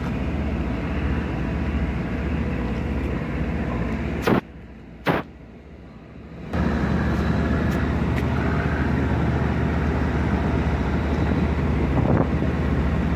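Tugboat's diesel engine running steadily: a constant low rumble under a wash of noise. The sound drops out for about two seconds midway, with a sharp click at each end.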